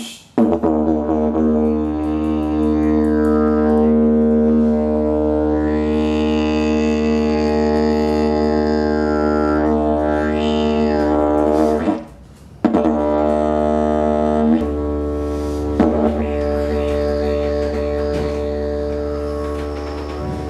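Didgeridoo playing a sustained low drone, its upper overtones swept up and down as the player shapes the sound with the mouth. The drone breaks off briefly about twelve seconds in and then resumes with a slightly different tone.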